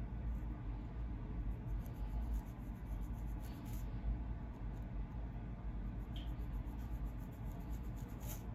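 Fine-tooth comb scratching along the scalp to lift dandruff flakes: many short, light scraping strokes, a few stronger ones near the middle and near the end, over a steady low hum.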